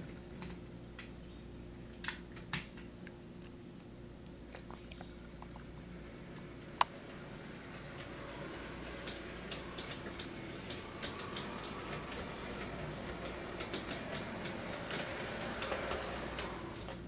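HO scale model train running on Bachmann E-Z Track, with scattered light clicks from the wheels and track that grow louder in the second half as it nears and passes. One sharp single click about seven seconds in.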